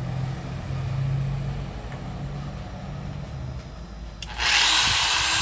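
A low steady hum, then about four seconds in a Bosch GWS 9-125 S angle grinder's motor starts suddenly and runs with a whine. The grinder now works again after its broken power cord was spliced.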